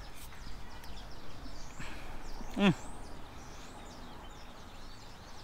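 Quiet garden ambience with faint bird chirps throughout, and one short vocal hum with a falling pitch about two and a half seconds in, from a man tasting food.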